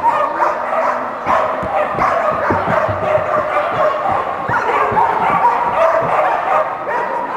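Dogs barking and yipping without pause, several voices overlapping, with scattered dull thuds.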